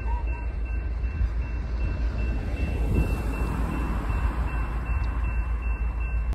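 Freight train rumbling steadily through a grade crossing while the crossing signal rings with a steady tone. A car's tires hiss past on the wet road, loudest about three seconds in.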